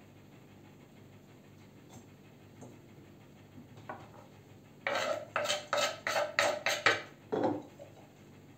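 Kitchen knife scraping chopped herbs off a wooden cutting board into a glass bowl, heard as a quick run of about seven sharp strokes past the middle and one more shortly after, following a stretch of quiet handling.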